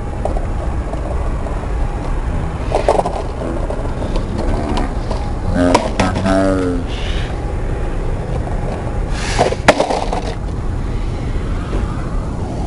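A young man's voice calling out over a steady low rumble, with a couple of sharp knocks about halfway through and again later.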